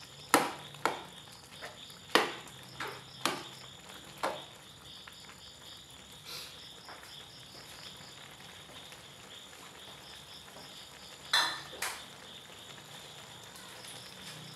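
Metal spatula clinking and knocking against an aluminium wok while noodles and vegetables are stirred: a run of sharp clinks in the first few seconds, one more near the middle and two close together near the end. Crickets chirp steadily in the background.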